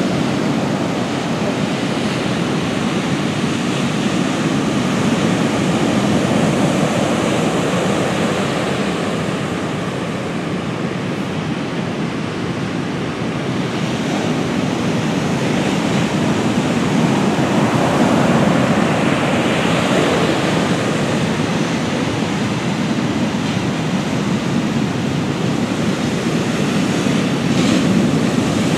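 Atlantic surf breaking and washing up a sandy beach, a steady rush of noise that swells and eases with the waves.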